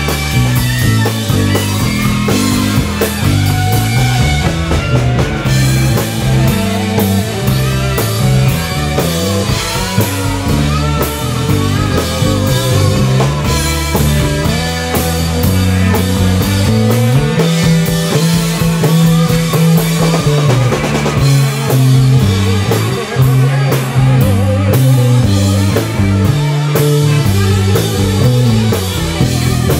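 Live psychedelic rock band playing: electric guitars over a bass line and a drum kit.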